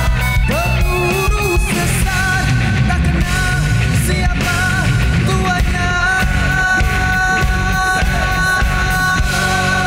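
Live pop-rock music from a vocal group singing into microphones over a full band with bass and drums. The singing moves in short melodic lines at first, then settles into long held notes from about halfway in.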